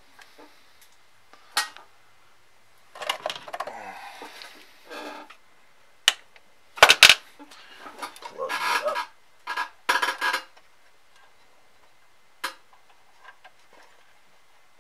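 Hands working a fog machine's fluid hose and nearby parts: scattered sharp clicks, knocks and short rustling, rubbing bursts. The loudest is a pair of sharp clicks about seven seconds in.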